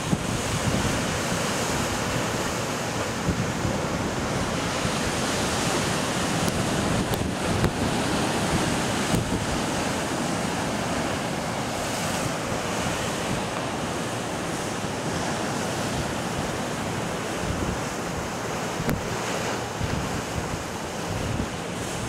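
Caribbean Sea surf breaking and washing over rocks in a steady rushing roar, with wind buffeting the microphone.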